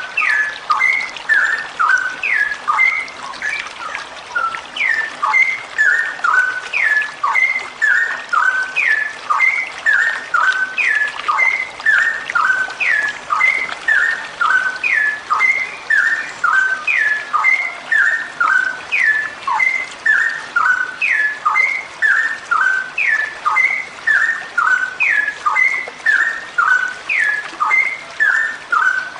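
Female straw-headed bulbul calling in a long unbroken rapid run ("ropel"): short, sharp, downward-slurred notes, a few a second, repeating the same phrase over and over at a steady pace.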